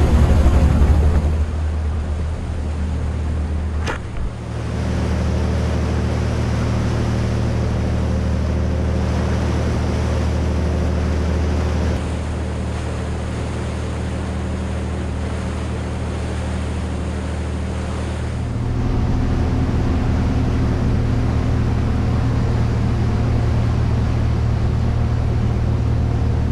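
Motor yacht underway: a steady low drone from its diesel engines, with water rushing along the hull. The drone's character shifts abruptly three times, about 4, 12 and 18 seconds in.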